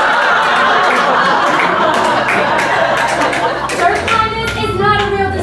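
Live audience laughing and then clapping in response to a sketch punchline. A voice comes in near the end.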